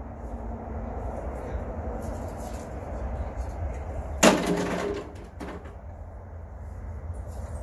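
One loud, sharp impact of hard material about four seconds in, with a short ringing tail, over a low steady rumble. It comes from work clearing broken concrete from the stone pillar tops.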